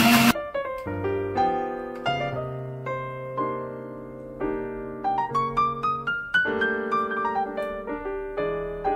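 Countertop blender running, cutting off abruptly a fraction of a second in; after that, gentle piano background music playing single notes and chords.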